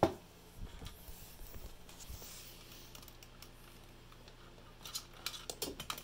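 Handling noise from a smartphone held over a carpeted floor and set down: a thump right at the start, then scattered light taps and clicks, with a quick cluster of clicks about five seconds in. No ringtone or alert sound plays.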